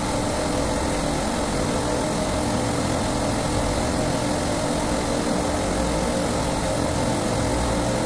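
Steady drone of refrigeration compressors running on a supermarket compressor rack, with a constant low hum.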